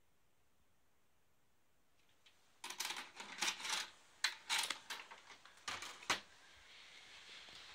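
Handling noise: after a couple of seconds of near silence, rustling with a quick run of sharp clicks and knocks as a VHS cassette and the phone are moved about, followed by a faint steady hiss.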